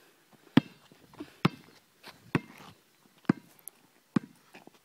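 A basketball bouncing on an asphalt court: about five sharp, hollow thuds, roughly one a second.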